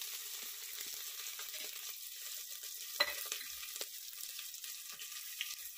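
Sliced onions sizzling as they fry in hot mustard oil with whole spices in an aluminium pressure cooker, a steady high hiss. A single sharp knock about three seconds in.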